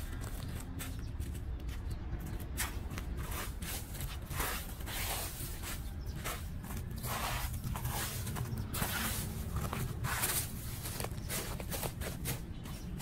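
Small metal hand rake scraping and dragging dry leaves across concrete, in short irregular strokes, over a steady low rumble.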